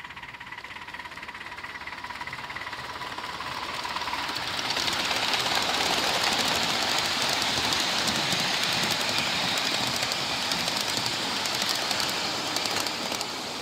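1/8-scale live-steam Pennsylvania Railroad K4sa locomotive and its train of riding cars passing close by. The sound of the running train builds from about four seconds in, holds as the cars go past, and drops away near the end as the last car passes.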